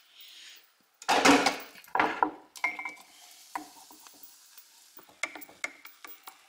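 Frothed milk poured from a jug into a mug, loudest about a second in. Then a spoon stirs and clinks against the mug several times with short ringing tones.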